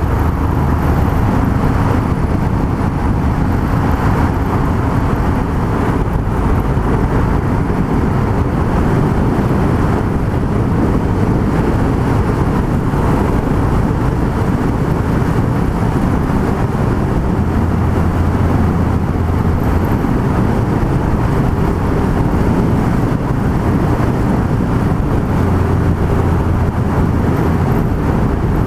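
Yamaha MT-03 660 single-cylinder engine running steadily at cruising speed, under heavy wind and road noise. A low engine note swells twice in the second half.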